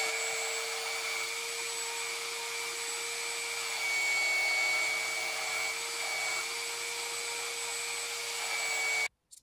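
Electric belt sander mounted in a bench stand, running with a vacuum hose drawing off the dust: a steady motor whine over a hiss, with the sound of a small wooden block being sanded on the belt. It gets a little louder around four seconds in and stops abruptly near the end.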